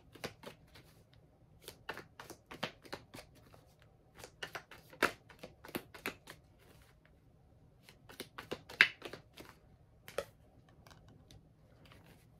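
A deck of cards being shuffled and handled by hand: clusters of quick, irregular clicks and flicks of card edges, the loudest a little past two-thirds of the way through, and a card drawn and laid down.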